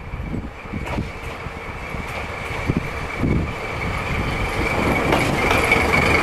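DD13 diesel-hydraulic locomotive running past close by, its engine growing steadily louder as it approaches, with a steady high whine and a couple of sharp knocks.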